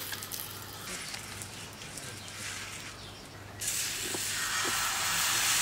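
Crepe batter hitting a hot saj griddle over wood embers, breaking into a loud, steady sizzling hiss about three and a half seconds in. Before that, fainter sizzling and light ticks as the griddle is wiped with fat.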